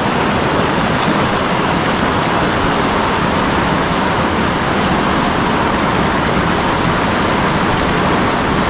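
Steady rush of a fast mountain trout stream running over rocks, loud and even throughout.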